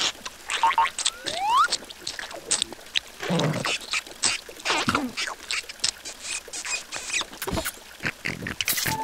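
Squeaky, chattering nonsense vocalizations of cartoon larva characters, mixed with short clicks. A rising whistle-like slide comes about a second and a half in.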